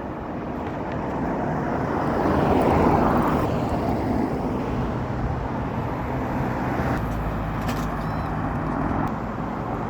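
Motor vehicle on the road: engine and tyre noise swelling to its loudest about three seconds in, then running steadily.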